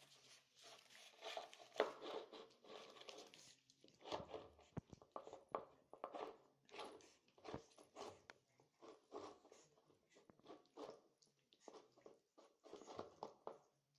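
Pug eating from a plastic food bowl: faint chewing and licking in short, irregular bursts, a few a second, as it works the food and then the nearly empty bowl.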